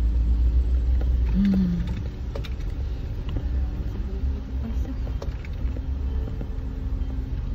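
Suzuki Jimny heard from inside the cabin while driving slowly over a rough dirt track. A steady low engine and road rumble eases about a second and a half in, with scattered light knocks and rattles over the uneven ground.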